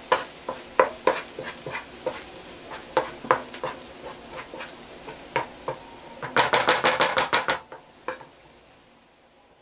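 A wooden spoon stirring and scraping fried rice in a nonstick frying pan, knocking against the pan at uneven intervals over a steady sizzle. About six seconds in comes a quick run of rapid strokes, after which it goes quieter near the end.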